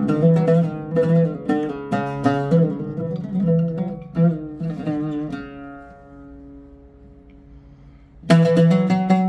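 A Sabsaby-made Arabic oud improvising taqasim, with runs of quick plucked notes. About five seconds in, one note is left to ring and fade for roughly three seconds. Near the end, playing resumes with firm plucks.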